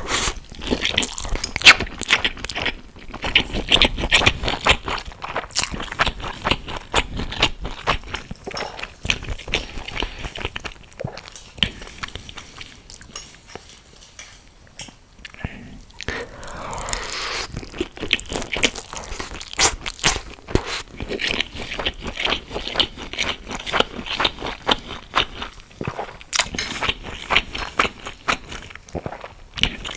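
Close-miked eating: a stream of crisp, crunching bites and chewing, with a quieter stretch about halfway through.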